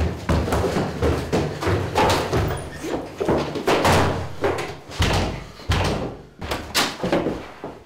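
A fast, irregular run of thuds and bangs: feet pounding on a wooden staircase and a door banging.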